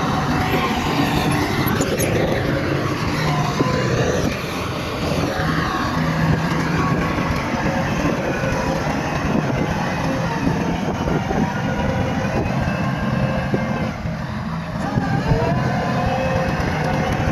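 Bulldozer's diesel engine running steadily under load, with its pitch rising and falling as it works. The level dips briefly twice, a few seconds in and again near the end.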